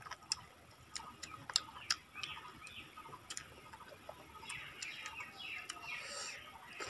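Close-up eating sounds: wet chewing and mouth noises broken by many sharp, irregular lip-smacking clicks, busier in the second half.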